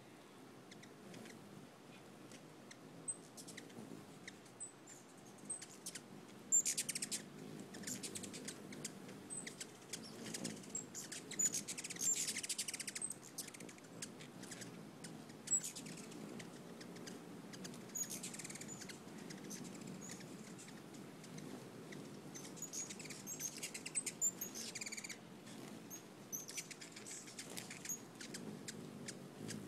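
Hummingbirds at a feeder: short, sharp, very high chip notes scattered throughout, with several bursts of rapid buzzy chatter and wing whirring as a second bird hovers in beside the first.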